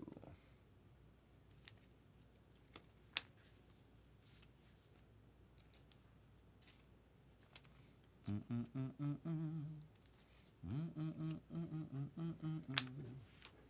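Light clicks and snaps of trading cards being handled, then, from about eight seconds in, a man humming a tune in two short phrases.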